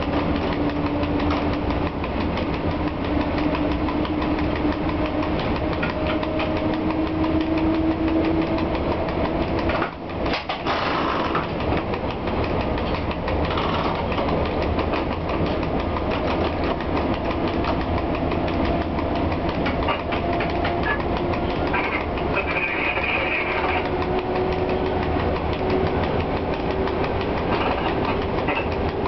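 Cab noise of a PKP ET22 six-axle electric locomotive under way: a continuous rumble of wheels and machinery with a motor hum that rises slowly in pitch over the first ten seconds as the train gathers speed. The level dips briefly about ten seconds in, and a steadier hum of a different pitch comes through near the end.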